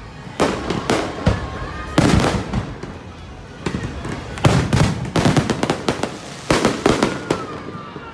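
Aerial fireworks bursting: a rapid series of sharp bangs with rumbling echoes, coming in clusters that grow denser in the second half.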